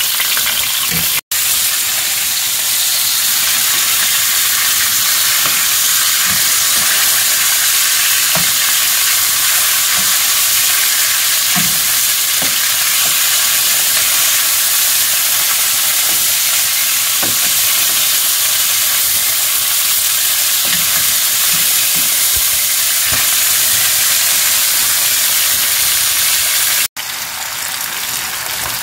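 Whole fish frying in oil in a non-stick pan, a steady loud sizzle, with occasional light taps of a wooden spatula as the fish are turned and shifted. Near the end the sizzle gives way to a quieter hiss.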